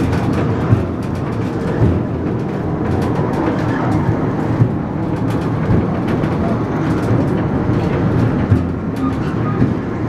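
Babbacombe Cliff Railway funicular car running along its cliff track: a steady low rumble with a few sharp knocks at irregular moments.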